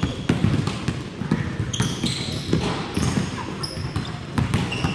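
Basketballs being dribbled on a hardwood gym floor: a run of sharp bounces from more than one ball, echoing in the large hall. Short high sneaker squeaks come in between the bounces.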